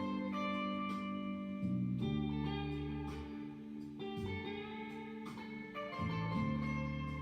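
Background music: a guitar-led instrumental with plucked notes over a steady bass line.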